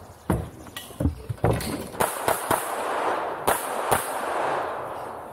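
Pistol firing a string of about eight shots at irregular spacing, some in quick pairs.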